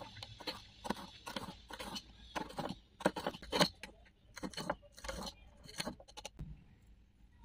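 A small knife slicing through a red onion onto a small clay chopping board: a dozen or so crisp cuts, about two a second, stopping about six seconds in.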